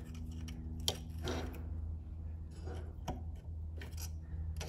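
Needle-nose pliers clicking and scraping on a steel cotter pin as its legs are bent over a tie rod end's castle nut: a few sharp clicks, the strongest about a second in, over a steady low hum.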